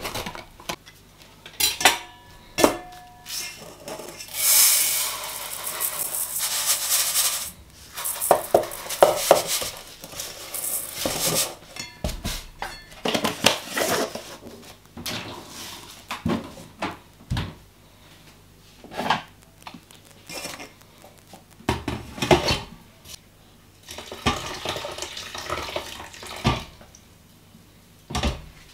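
A string of kitchen handling sounds: a knife cutting the seal of a plastic jar, dry grain poured into a metal rice-cooker pot, and clinks and knocks of the pot and utensils, with a few longer rustling stretches between them.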